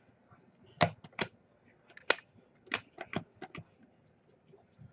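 Trading cards being handled and flipped through by hand: a run of about nine sharp, irregular clicks and snaps over a few seconds.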